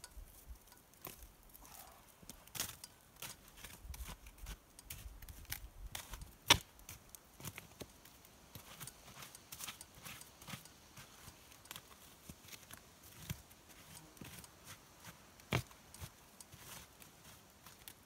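Scattered light clicks and knocks of a metal camp pot and a stick being handled at a stone campfire ring, with one sharp knock about six and a half seconds in and another near the end.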